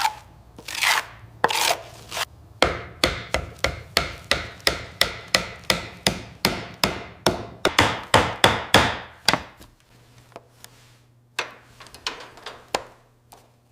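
A rhythmic series of sharp knocks, about three a second, for some seven seconds, then a few fainter scattered knocks.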